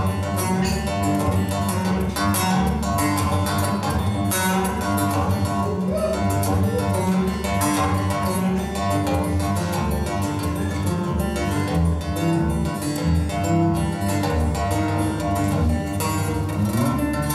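Solo acoustic guitar fingerpicked in a fast, busy instrumental, steady bass notes under quick melody lines, with a rising slide near the end.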